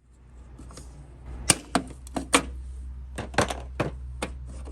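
Irregular sharp plastic clicks and taps as a small flat-blade screwdriver pries at a liftgate window switch, pushing in its retaining tabs to release it from the liftgate trim. A low steady hum runs underneath.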